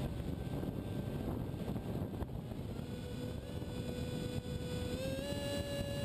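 Multiplex EasyStar RC plane in flight: its electric motor and pusher propeller whine steadily under a rush of wind on the onboard GoPro's microphone. The whine steps up in pitch about five seconds in.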